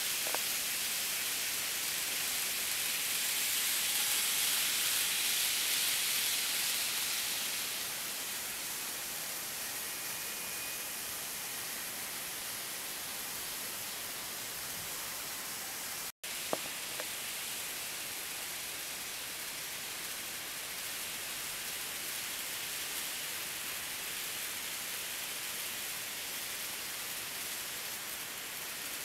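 Steady, even hiss with no distinct motor whine or wheel clatter. It is louder for a few seconds near the start. About halfway the sound drops out for an instant and then a single click follows.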